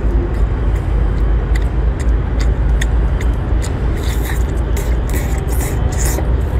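Close-up eating sounds from a man eating a sea snail: wet lip smacks and clicks throughout, and hissy slurping bursts from about four to six seconds in. These sit over a steady low outdoor rumble.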